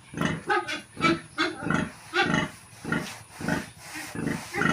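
A sow grunting in short, regular calls, about two to three a second, the rhythmic grunting of a sow nursing her newborn piglets.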